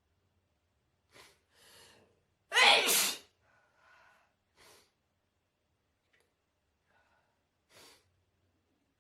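A person with a heavy cold sneezing once, loudly, about two and a half seconds in, after two quick gasping breaths in. A few faint short breaths follow.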